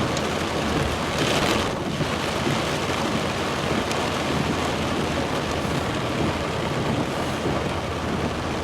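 Heavy rain falling on a truck as it drives through a flooded street, heard as a steady rushing hiss, with a brief louder rush of water about a second in.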